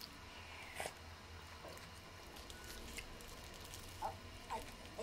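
Quiet room with a few faint rustles and small taps as a paper-wrapped sandwich is handled, about a second in and again near the end.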